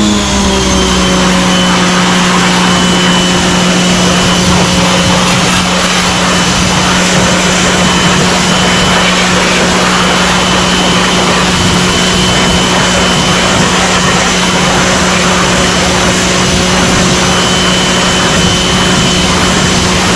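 Giraffe Tools Grandfalls electric pressure washer running, a steady motor hum under the loud hiss of its water jet spraying a car wheel.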